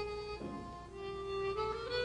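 Background music: a slow melody of long held notes, stepping up in pitch near the end.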